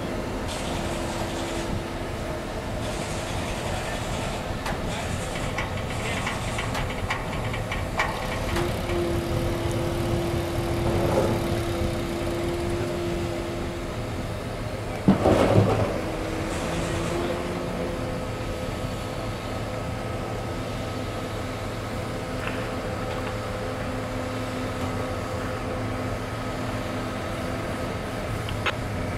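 Mobile crane's diesel engine running steadily while lifting an ore wagon, with a held whine that steps up and down in pitch now and then. A short, loud burst of noise a little past halfway.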